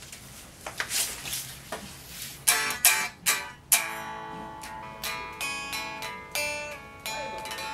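Electric guitar: a few sharp strummed chords about two and a half seconds in, then a run of picked single notes ringing on. Before the playing there are scattered rustles and light knocks.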